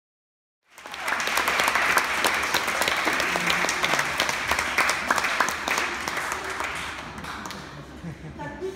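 Audience applauding, starting suddenly about a second in and thinning out near the end.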